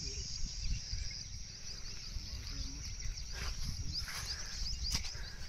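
Faint orchard ambience: scattered high bird chirps over a steady insect hum, with a low rumble of wind on the microphone.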